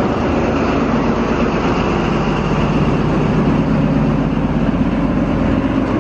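Departing XPT diesel passenger train rolling past close by, its carriages clattering on the rails, then its rear power car going by with its engine running under power. A loud, steady drone with a low engine hum that firms up about halfway through.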